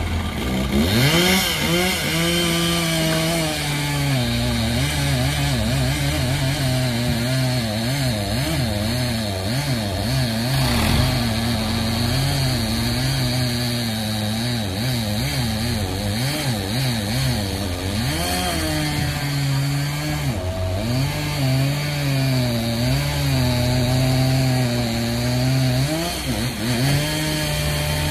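Chainsaw running at high revs, its pitch swinging up and down over and over as it cuts into a log. It revs up about a second in.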